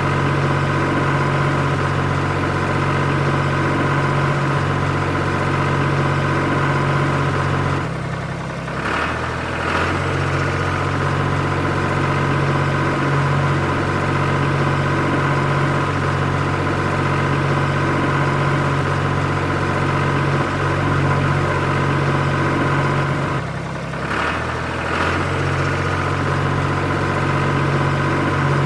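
Tractor engine running steadily. Twice, about eight seconds in and again later, its pitch and level sag briefly before picking back up.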